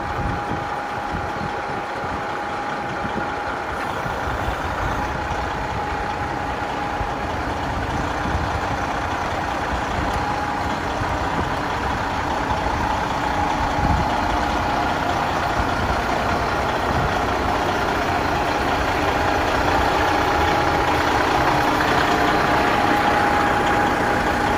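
Detroit Diesel Series 60 12.7-litre engine of a Kenworth W900L semi truck running at low speed as the truck creeps forward, with a steady whine above the engine note. It grows slightly louder as the truck comes closer.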